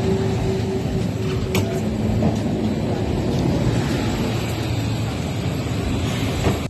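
Green tram standing at a stop, its steady machine hum running under busy street noise, with one sharp click about a second and a half in.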